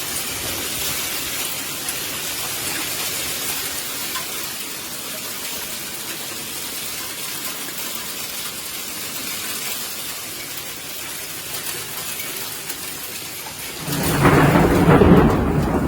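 Hail and rain pelting down in a steady hiss during a storm. About 14 s in it changes abruptly to a louder, deeper rumbling.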